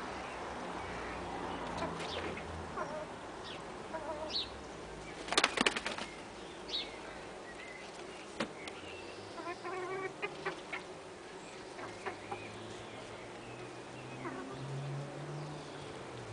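A chicken flapping its wings in a short, loud burst about five seconds in, with scattered short chicken calls and a quick run of clucks around ten seconds.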